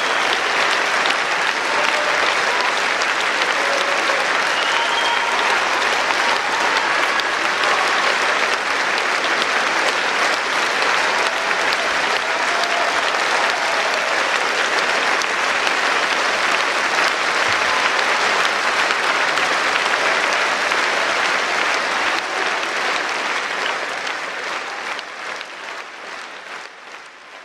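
Theatre audience applauding steadily, with a few voices calling out early on, then fading out near the end.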